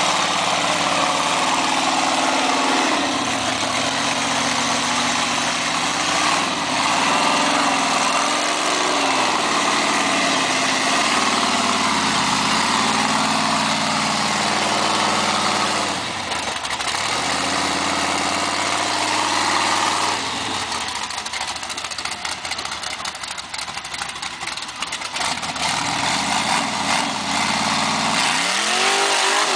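Rock buggy engine running and being revved up and down as the buggy crawls over boulders. From about two-thirds of the way through, rough clattering mixes in, and the revs climb sharply near the end.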